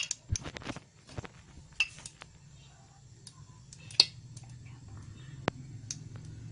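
Metal clinks and taps of a wok against a gas stove's pan support, irregular and densest in the first two seconds, with one sharp loud clink about four seconds in. Under them a low steady hum of the gas burner flame grows louder through the second half as the oil heats.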